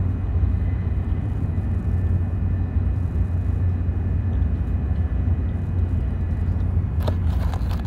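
Steady low rumble of a Joetsu Shinkansen bullet train running at speed, heard from inside the passenger cabin, with a few short clicks near the end.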